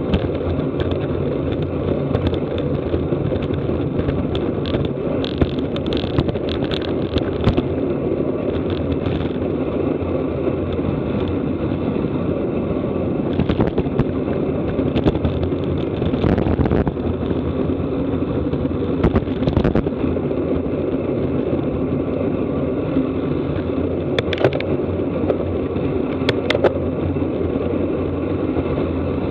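Steady rush of wind and road noise on a racing cyclist's onboard camera at speed, broken by scattered clicks and rattles from the bike.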